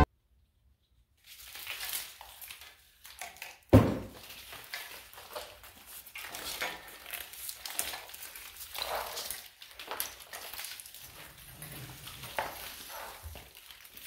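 Engine wiring harness rustling, with its plastic connectors clacking, as it is pulled off an engine by hand, with one sharp knock about four seconds in.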